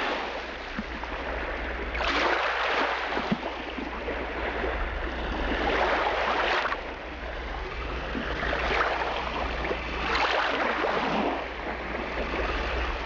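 A rushing noise that swells and fades every two to four seconds, over a steady low hum.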